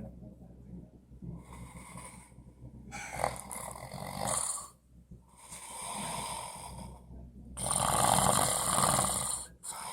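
A man snoring in his sleep: a run of long, rasping snoring breaths, each lasting a second or two with short pauses between, the last one near the end the loudest.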